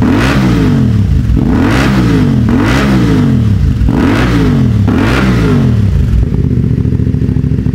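CF Moto 450MT's 449 cc parallel-twin engine through a ProSpeed Shark Black full-system exhaust, revved in about five quick throttle blips that each rise and fall in pitch, then settling to a steady idle for the last couple of seconds.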